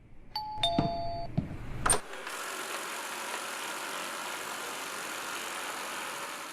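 Robot vacuum cleaner sounding a short electronic chime of a few steady tones, then a click about two seconds in, followed by the even, steady hiss of its suction motor running.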